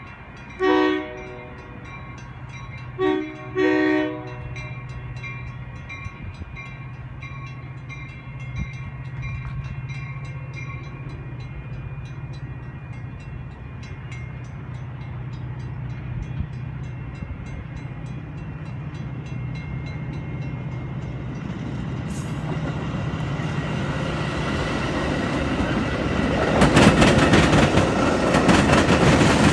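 Metra commuter train approaching with its cab car leading. The horn sounds three times near the start: one blast, then two close together about two seconds later. Under it are a steady low hum and a bell ringing at an even pace that stops a little over twenty seconds in. The train's noise then grows until the bilevel cars pass close by with loud wheel clatter on the rails.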